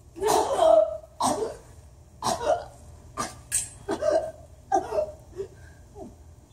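An actor's short grunts and gasps of exertion in a stage fight, a string of separate strained vocal sounds about once a second, the first the loudest.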